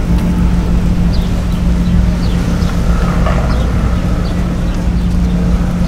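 An engine running steadily with a constant low hum, with faint short high chirps now and then.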